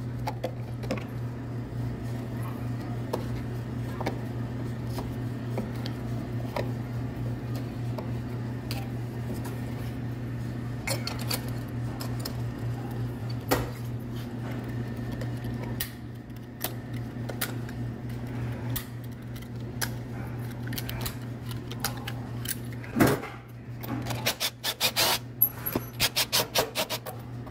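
Oscillating multi-tool running with a steady buzz as its blade cuts caulk along a wooden door jamb, with light scraping clicks. Near the end the buzz drops away and a rapid run of sharp clicks and taps follows.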